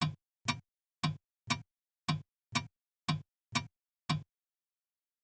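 Alarm clock ticking: sharp ticks about two a second, each with a short ring, stopping about four seconds in.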